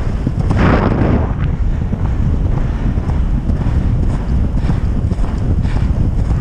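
Wind buffeting a helmet-mounted microphone while a horse gallops across grass, with a louder rush of wind noise about half a second in. The horse's hoofbeats are faint under the wind.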